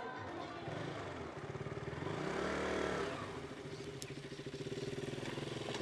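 Small engine revving up and back down about two seconds in, then running at a steady idle with a quick, even firing beat.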